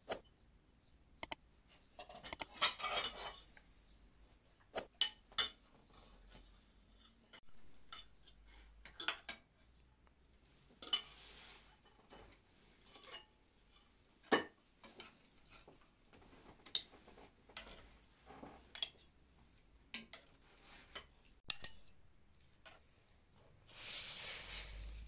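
Metal ladle and spoons clinking and scraping against metal pots and ceramic bowls as stew and rice are dished up, in scattered separate clinks, with a short ringing tone a few seconds in and a longer stretch of scooping near the end.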